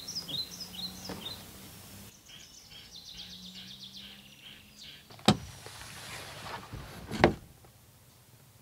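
Birds chirping and a faint high trill in the open air, then two sharp thumps about two seconds apart.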